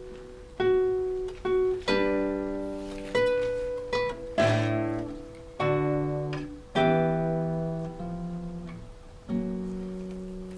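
Classical guitar played solo: slow, separate plucked chords and notes, each struck sharply and left to ring and fade.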